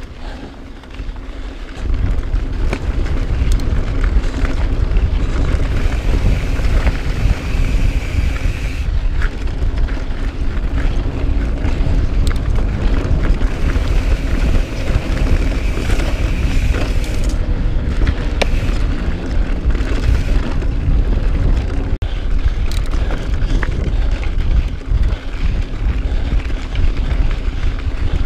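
Mountain bike riding on a dirt trail, heard from a bike-mounted action camera: wind on the microphone and tyre rumble, with scattered small knocks and rattles from the bike. It gets louder about two seconds in and stays steady.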